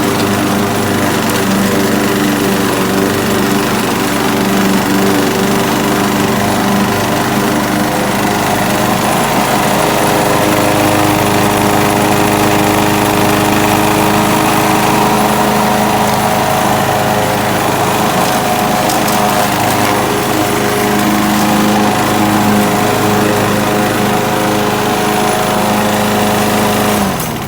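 Craftsman 6.75 hp lawnmower engine running loud and steady at an even speed after its carburetor was cleaned.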